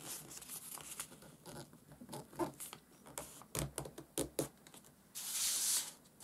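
Origami paper being handled and creased by hand: soft taps, crinkles and rustles of the paper, then about five seconds in a brief hiss as a folded piece of paper slides across the table.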